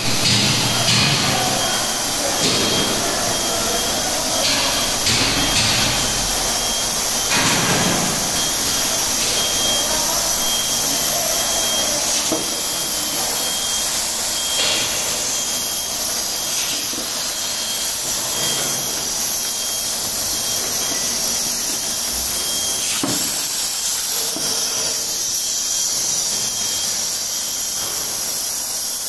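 A rotary rinsing-filling-capping machine for 5- and 10-litre PET bottles running, with a loud, steady hiss and a few knocks and clatters of bottles and mechanism.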